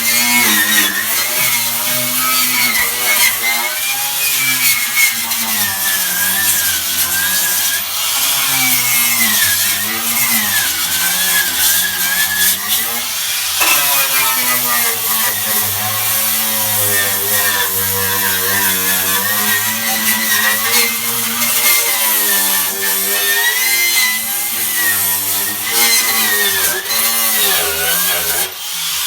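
A power tool running continuously, its pitch wavering up and down as the load on it changes.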